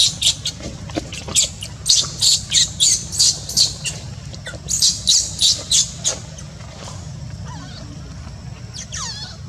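Newborn monkey crying in distress: a quick run of shrill squeals, about three a second, that stops about six seconds in, with one more falling squeal near the end.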